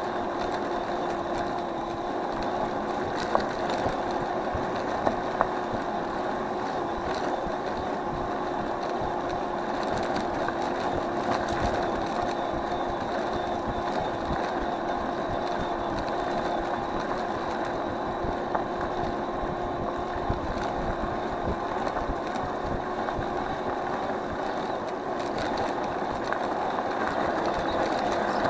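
Electric scooter riding along at cruising speed: a steady motor whine over tyre and road rumble, with a few sharp clicks and rattles from bumps, several of them a few seconds in.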